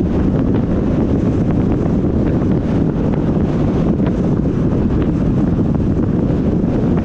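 Wind buffeting the microphone: a loud, steady low rumble with no letup.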